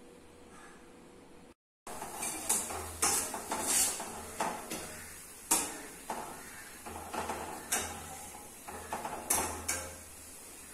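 Kitchen clatter: an irregular run of clinks and knocks of utensils against dishes. It starts about two seconds in and stops shortly before the end.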